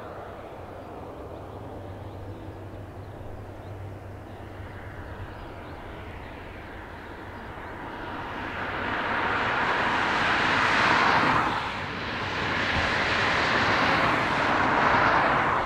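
Airbus A330 Voyager tanker's twin Rolls-Royce Trent 700 turbofans on final approach with gear down: a steady jet rumble and hiss that grows much louder over the second half as the aircraft comes closer, swelling twice before easing off near the end.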